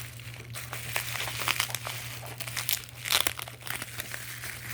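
Packaging crinkling and crackling as it is handled and pulled open by hand, in irregular crackles with a few louder ones.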